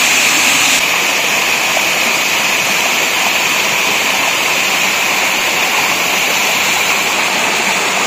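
Waterfall rushing: a steady, loud hiss of falling water.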